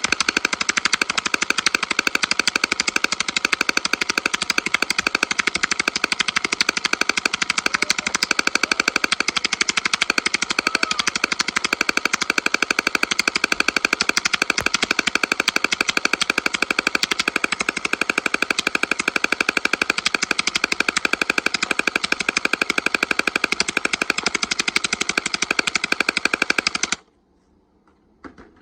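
Orbeez gel-ball gun firing full-auto in one long, rapid, continuous burst that stops abruptly near the end.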